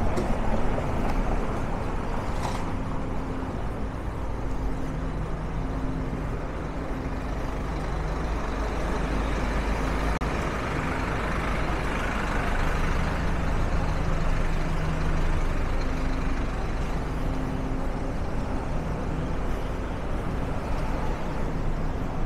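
Street traffic with a heavy vehicle's engine running steadily; the broader traffic noise swells and fades again about halfway through.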